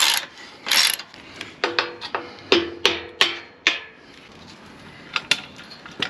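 Hand ratchet wrench with a socket undoing the nuts that hold a caravan chassis's running gear. Two rasping ratchet strokes about a second apart, then a run of sharp, ringing metal clicks and clinks, and a couple more clicks near the end.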